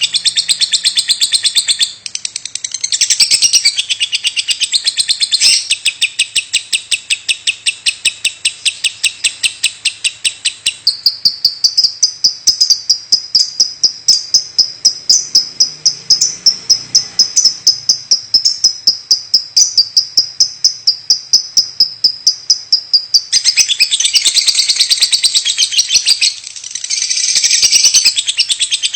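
Lovebird calling nonstop in fast strings of sharp chirps, several a second, the unbroken call that keepers call "batuk" (cough). Through the middle the chirps turn thinner and higher and a little slower, then go back to the fuller, denser chatter near the end.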